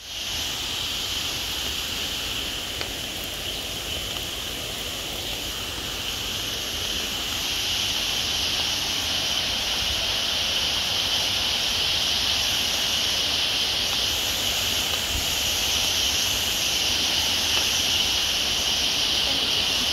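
Steady tropical-forest ambience: a continuous high insect chorus over an even hiss, growing slightly louder about halfway through.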